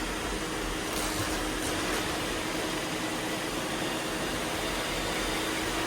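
Several robot vacuum cleaners running at once: a steady whirring hum of suction motors and brushes, with one faint steady tone running through it.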